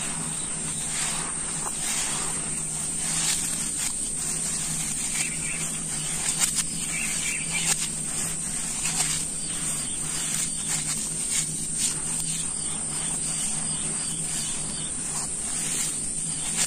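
Hands digging into, squeezing and sifting dry sand-cement powder in a glass bowl: a steady gritty rustling and hiss of falling grains, broken by many small crunches and crackles.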